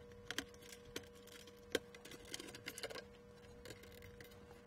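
Faint, irregular small plastic clicks and taps as wire-harness connectors are unplugged from a circuit board and the board is handled, with a steady faint hum underneath.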